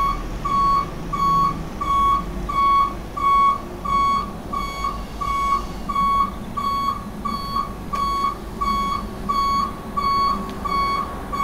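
Haulotte HS 15 E scissor lift's lowering alarm: a steady high beep repeating about three times a second over a low hum as the platform descends slowly through its last stretch. It is the warning that nobody should stand under or between the scissor arms.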